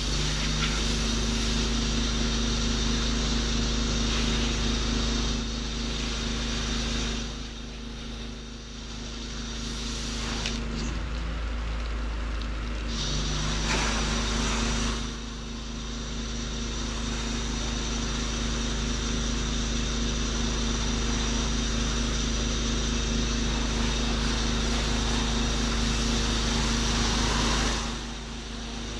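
Pressure washer running steadily, its engine humming under the hiss of the high-pressure water spray. The spray hiss drops away briefly a few times while the engine keeps running.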